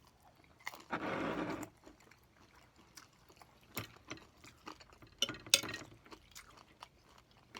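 Eating sounds at the table: chewing a mouthful of fried fish, with scattered clicks and small knocks of utensils and dishes. The loudest click falls about five and a half seconds in.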